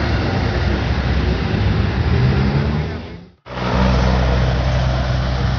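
A steady low hum like a vehicle engine under a loud, even hiss. It fades to silence about three seconds in and comes back abruptly with a stronger low hum about half a second later.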